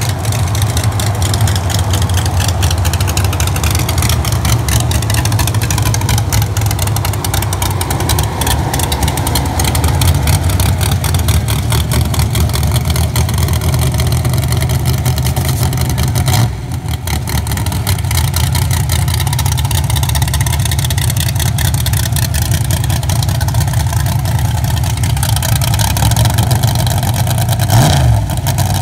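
Drag-race Chevrolet S-10 pickup's engine idling loudly and steadily, revved up briefly near the end.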